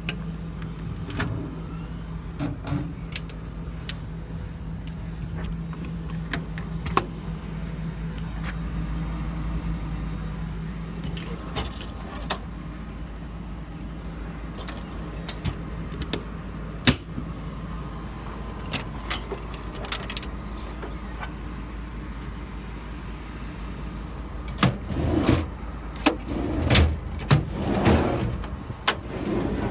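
Metal service-body compartment doors and latches clicking and knocking over a steady low hum, with a burst of louder knocks and rattles near the end.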